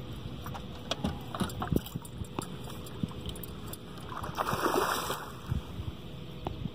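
Low wind and water noise with light knocks around the boat, then a short splash about four and a half seconds in as a hooked catfish breaks the surface and rolls.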